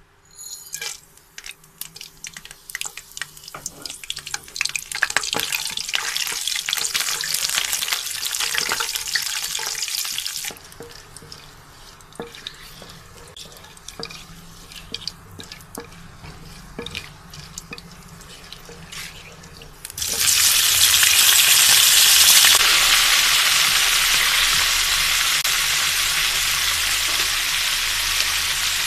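Whole spices crackling and sizzling in hot oil in a wok, stirred with a wooden spatula, the crackle building over the first ten seconds and then settling to a quieter spitting. About twenty seconds in, boiled beef chunks go into the oil and a much louder, steady sizzle takes over as the meat fries.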